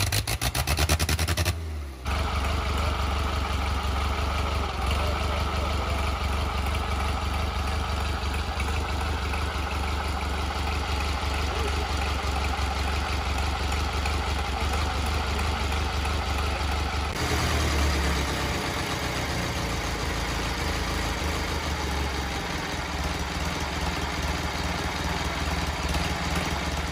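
1928 Indian Ace 4's air-cooled inline four-cylinder engine running steadily at idle.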